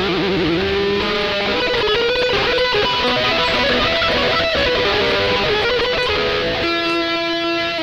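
Electric guitar playing a lead line: wavering, bent notes at first, then a run of quick notes, ending on one long held note near the end.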